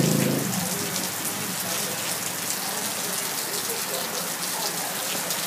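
Heavy rain falling on a concrete yard and running off a roof edge: a steady hiss dotted with the patter of drops. A low steady hum stops about half a second in.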